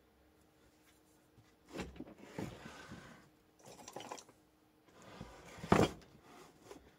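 Handling noises while a whetstone is being set up: several knocks and scraping rubs, with the sharpest knock a little before the end.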